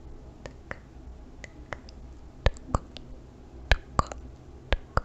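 Close-miked ASMR mouth sounds: irregular wet clicks and lip pops, about ten in five seconds, the loudest in the second half.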